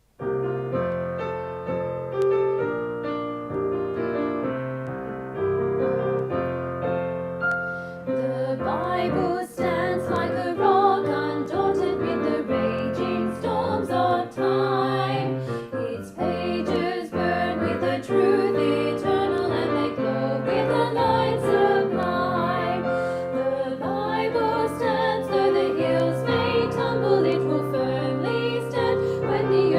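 Recorded music with piano starts abruptly. About eight seconds in it becomes fuller, with more instruments, a regular beat and singing.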